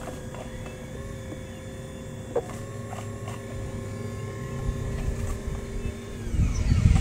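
Radio-controlled model CAT 5110 excavator's motors whining steadily while it digs and swings, with a single sharp click about two and a half seconds in. The pitch shifts near the end as a louder low rumble builds.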